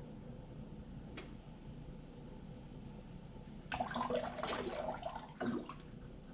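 Warm water from a rubber bulb ear syringe being squirted into the ear and streaming back out, splashing into a bathroom sink for about a second and a half a little after halfway through, with a short second splash just after.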